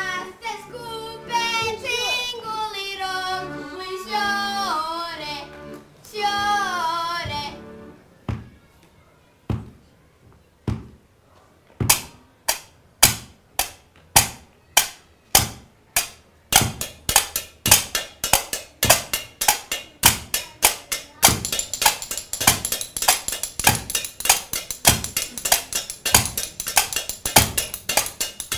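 Children singing a folk song for about the first seven seconds. After a short pause a steady beat of sharp taps starts, about two a second, then quickens, and tambourine jingles join it about two-thirds of the way through.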